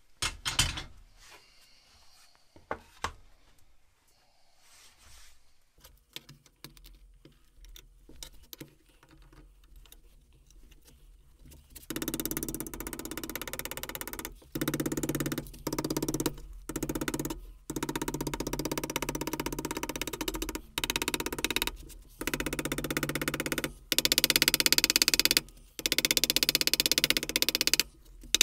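A few light, scattered knocks of a soft-faced mallet on sheet metal clamped over a wooden form block. A little before halfway through, louder music with a drum beat comes in and carries on, broken by short gaps.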